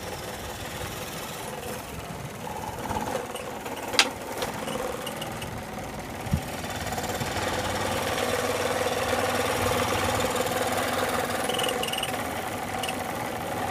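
Electric scroll saw running steadily, its blade chattering up and down, growing louder about seven seconds in, with a sharp click about four seconds in and another a couple of seconds later.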